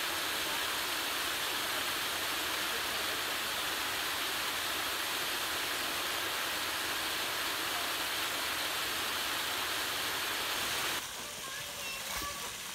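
Steady rush of falling water from a waterfall. About eleven seconds in it drops suddenly to a quieter, thinner water sound from a small falls, with a soft knock near the end.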